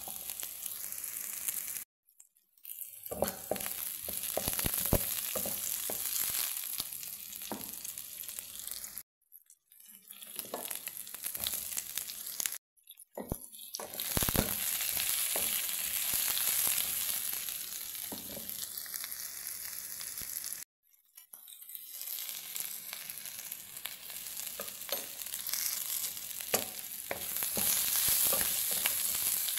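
Sliced onion and eggplant sizzling in hot oil in a pan, with a spatula clicking and scraping as they are stir-fried. The sizzle cuts out briefly about four times.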